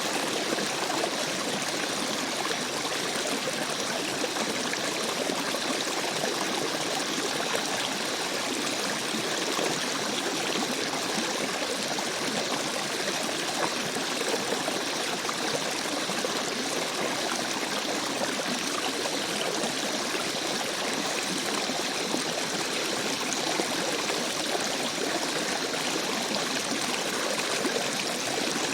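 Rainforest stream, water running and trickling steadily.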